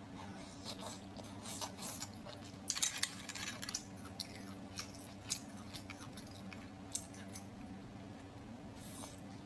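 Close-miked chewing of soft, sauce-dipped shellfish meat: wet squishy mouth clicks and smacks, busiest about three seconds in. A faint steady low hum runs underneath.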